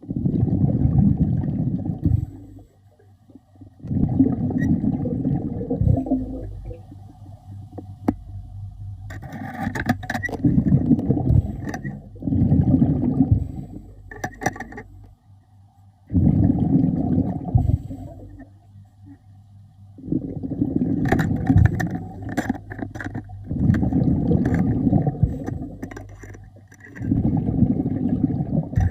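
A diver's breathing underwater: each exhalation through the regulator releases a rush of bubbles lasting about two seconds, in a regular rhythm of one breath every three to four seconds, over a faint steady hum, with scattered sharp clicks.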